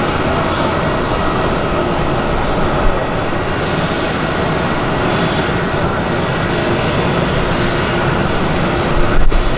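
Fixed-wing aircraft engines running loud and steady, with a faint steady whine over the noise; a louder low rumble swells near the end.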